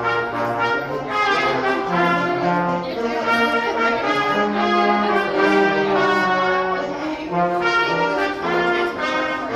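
Brass ensemble music: several instruments holding slow, sustained chords over a low moving bass line.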